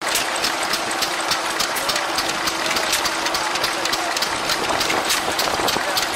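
Vintage single-cylinder stationary engine with an air-cooled finned cylinder and twin flywheels running steadily, with a regular knocking beat of about three to four strokes a second over a steady hum.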